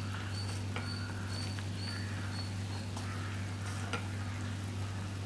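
Tamarind gravy bubbling in a clay pot on high heat: soft pops and patter from the boil at the pot's sides. A faint high chirp repeats about twice a second over a steady low hum.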